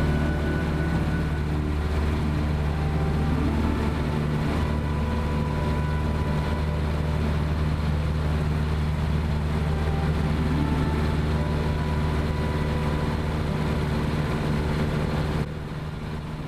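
Piper L-4J Grasshopper's four-cylinder air-cooled engine running steadily in flight, a continuous low drone. The sound drops suddenly about a second before the end.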